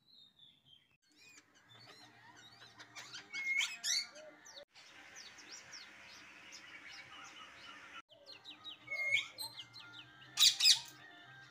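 Caged parakeets calling: a run of chirps and short whistles, with two loud shrill screeches, one about three and a half seconds in and one near the end.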